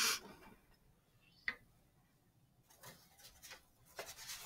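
Faint handling noise of papers and objects being moved while someone searches through a pile. There is a short rustle at the start, a single click about a second and a half in, then a run of small ticks and rustles near the end.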